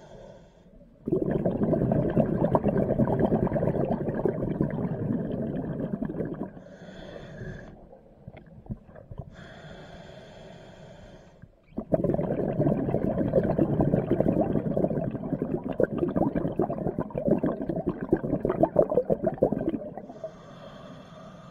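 Scuba diver breathing through a regulator underwater: two long exhalations of bubbles rumbling past the microphone, one starting about a second in and a longer one from about halfway through. A faint regulator hiss of inhaling fills the quieter gaps.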